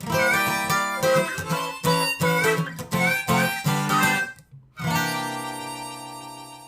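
Intro music: strummed acoustic guitar with harmonica in a rhythmic, upbeat phrase, then a short break and a final chord that rings out and fades.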